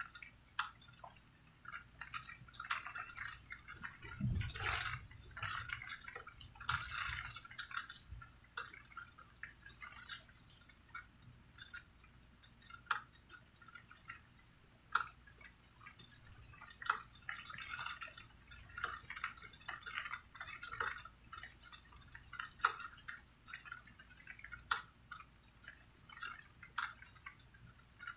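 Rain dripping and pattering in irregular, closely spaced drops, with a short low rumble about four seconds in.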